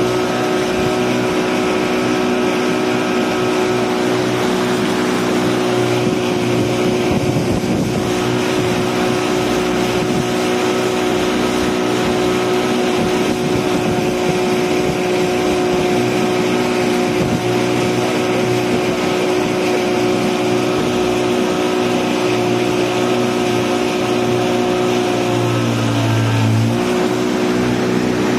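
Small speedboat's engine running steadily under way, with water rushing along the hull. Near the end the engine note dips briefly and then picks back up.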